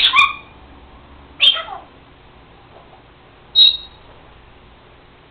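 Senegal parrot giving three short, loud calls: one at the start, one about a second and a half in, and a last one about two seconds later.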